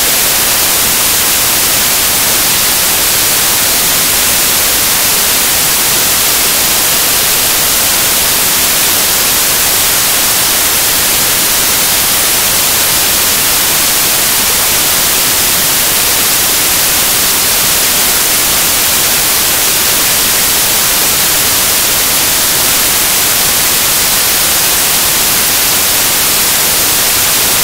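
Loud, steady static hiss, an even white-noise rush heaviest in the high end, filling the sound track with no voice or laughter audible through it.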